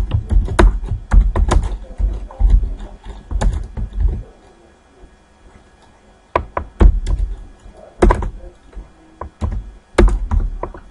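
Computer keyboard being typed on: irregular clusters of key clicks, each with a dull thud, with a pause of about two seconds in the middle.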